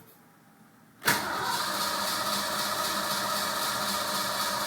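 Ford Mustang 5.0's engine being cranked by the starter. It kicks in suddenly about a second in and then runs on steadily. This is a car that barely starts, and the owner suspects an ignition fault such as the coil or a big voltage drop.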